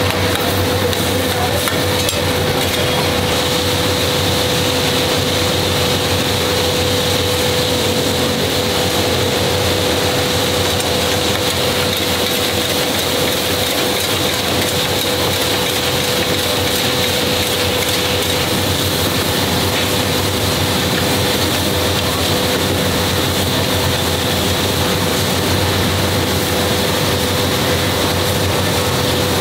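High-pressure gas burner flames hissing steadily under a steel karahi, with the chicken karahi sizzling in desi ghee.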